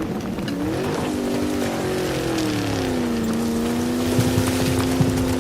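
Car engine revving up, dropping in pitch, then holding a steady drone, with a rough low rumble coming in near the end.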